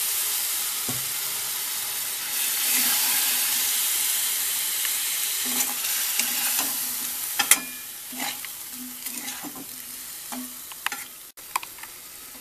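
Raw green banana cubes and masala sizzling in hot oil in a wok while being stirred with a metal spatula. The sizzle is loud for the first seven seconds or so, then dies down, leaving scattered clicks of the spatula against the pan.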